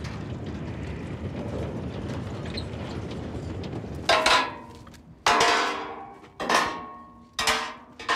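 Narrow-gauge peat train wagons rolling past with a steady low rumble. About four seconds in this gives way to four sharp, ringing metal blows a little over a second apart: hammer strikes on the steel of a track panel.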